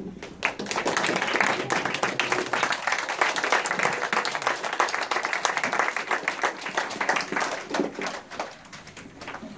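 A roomful of young children and adults applauding, with dense clapping that thins out to a few scattered claps near the end.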